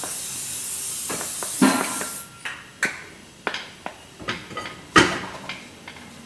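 A steady hiss that cuts off about two seconds in, then a string of short metallic clicks and knocks as a car's disc brake caliper is handled.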